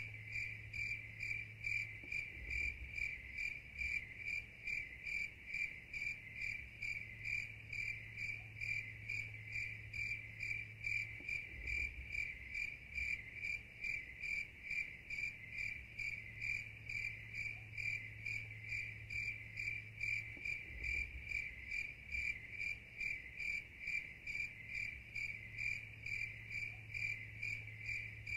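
Crickets chirping in a steady, even rhythm of two to three high-pitched chirps a second, with a faint low hum underneath.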